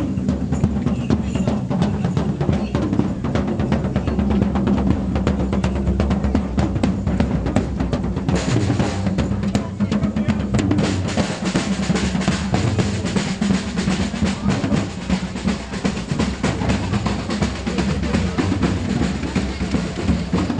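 Parade drums playing: rapid snare strokes over bass drum beats, with a steady low tone underneath. The drumming gets louder and busier about eight seconds in.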